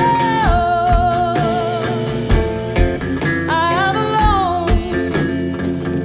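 Live blues song: a woman singing long held notes that slide between pitches, over electric guitar and a steady bass drum beat.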